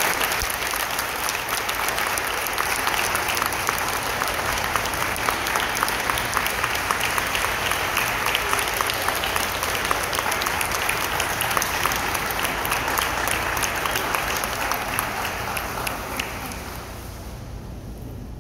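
Applause: many hands clapping steadily, fading away about three-quarters of the way through.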